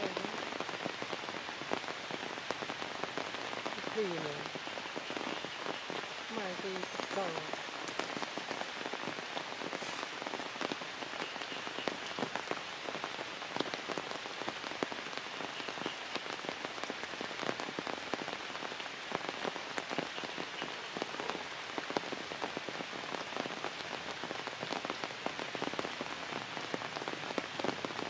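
Steady rain falling on forest leaves: a constant hiss dotted with many small drop ticks.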